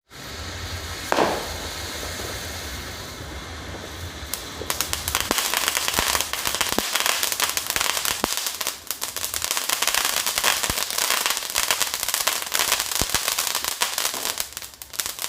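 Fireworks going off: one loud bang about a second in, then dense, rapid crackling of firecrackers from about five seconds on.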